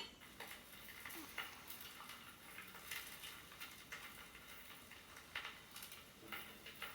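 Faint crackling and sizzling of an egg frying in a pan, with scattered small pops.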